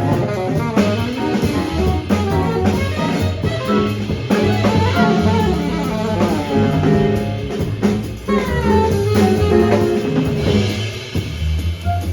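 Jazz quartet of saxophone, piano, bass and drum kit playing, with the drum kit prominent.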